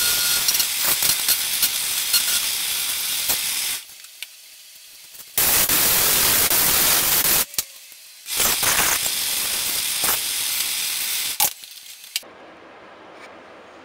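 Sandpaper pressed against a small brass nut spinning in a drill press chuck: a loud abrasive hiss with a few clicks, coming in stretches of a few seconds broken by short quieter pauses, and falling away about twelve seconds in.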